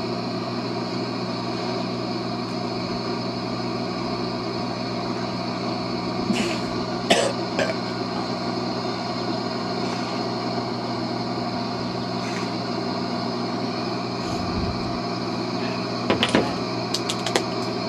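Shortwave radio receiver tuned to 11490 playing steady static hiss with several steady tones running through it, broken by a few short clicks.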